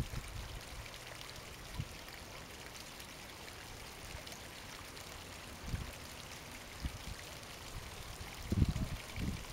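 Outdoor ambience from a handheld camera: a steady hiss, with wind buffeting the microphone in short low rumbles that grow stronger near the end.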